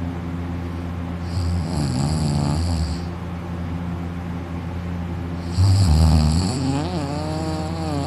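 A person in deep sleep snoring on their back with mouth open, throat and uvula vibrating: two long snores, about a second and a half in and about five and a half seconds in, the second louder and longer. A steady low hum runs underneath.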